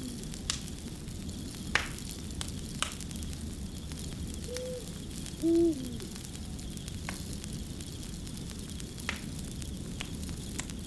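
Wood fire crackling: a steady hiss with a few sharp pops scattered through. An owl hoots twice near the middle, two short low notes a second apart, each dropping in pitch at the end, louder than the fire.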